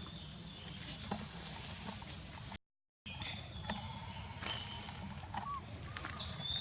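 Outdoor forest ambience: short, thin, high-pitched bird calls and scattered small clicks over a steady low background noise. The sound drops out completely for about half a second, about two and a half seconds in.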